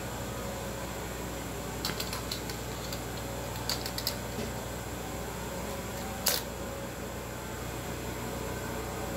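Steady low hum at an industrial sewing machine while the needle is rethreaded by hand, with a few small clicks about two seconds in, a cluster around four seconds, and a sharper click at about six seconds.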